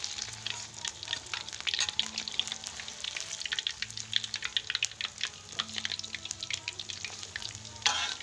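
Battered banana fritters deep-frying in hot oil in a wok, with a dense crackling sizzle as a metal spatula turns them. Near the end a short, loud clatter of the spatula against the wok.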